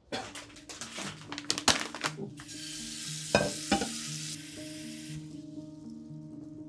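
A plastic bag of dried rice vermicelli crinkling and rustling in the hands, then a kitchen tap running for about two seconds with a couple of sharp knocks, the water fading out after. Soft background music plays underneath.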